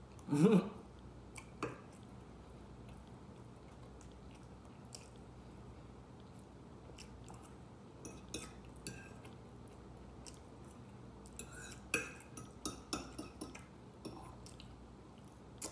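Close-up eating: chewing, with a fork clicking and scraping on a plate as food is cut, the clicks bunched near the middle and towards the end. A brief sound of the eater's voice about half a second in, and a steady low hum in the background, which he takes to be the refrigerator.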